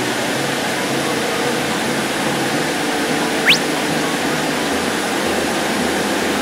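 Running noise inside a Fukuoka City Subway Nanakuma Line linear-motor train moving through the tunnel just after leaving a station: a steady rush with a pulsing low hum. About halfway through comes one brief, sharp, rising high-pitched sweep.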